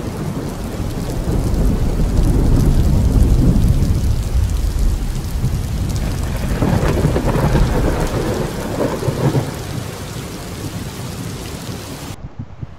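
Thunder rolling in two long rumbles over the steady hiss of rain. The first builds over the first few seconds and the second, rougher one comes about seven seconds in; the rumble then fades and the sound cuts off suddenly near the end.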